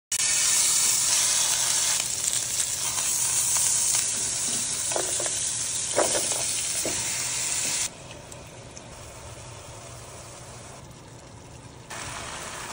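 Chicken frying in a pan with a steady sizzling hiss. It drops to a softer sizzle about eight seconds in and rises a little again near the end, with a few brief sharper sounds midway.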